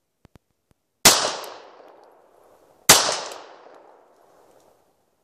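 Two pistol shots from a Ruger P94DC in .40 S&W, about two seconds apart, each trailing off in an echo.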